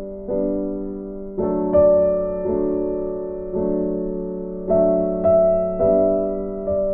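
Slow, gentle piano music: soft chords struck about once a second, each left to ring and fade.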